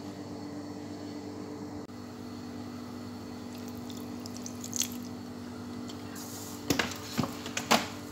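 Wet splashes and squelches from a bowl of raw peeled shrimp, a quick cluster of sharp sounds near the end, over a steady low hum; a single click comes about halfway through.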